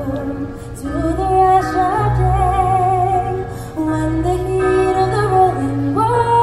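A woman singing a slow melody of long, wavering notes into a microphone over musical accompaniment, with a deep bass that comes and goes.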